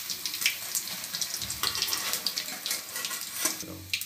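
Hot oil sizzling and crackling in a karahi as deep-fried onion fritters (piyaju) are lifted in a wire skimmer, with oil running and dripping off them back into the pan.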